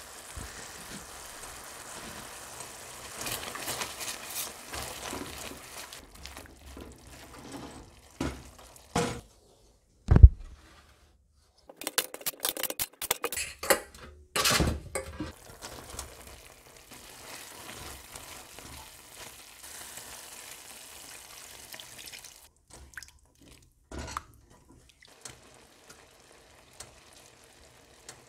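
A pan of tomato sauce simmering with a steady sizzle. About ten seconds in there is one loud thump. A few seconds of clattering and scraping on a metal baking tray of roasted cauliflower follow, then a steady sizzle again with a few light clicks.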